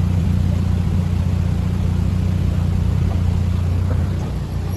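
Canal narrowboat's diesel engine idling, a steady low hum.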